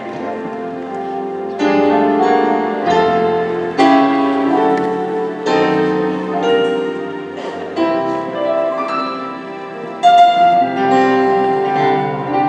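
Gospel keyboard introduction: slow chords struck and held, changing every second or two, with low bass notes beneath.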